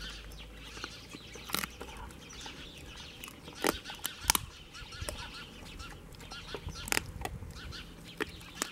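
A large dog chewing raw chicken pieces, bones and all, with sharp irregular crunches a second or two apart. Chickens cluck faintly in the background.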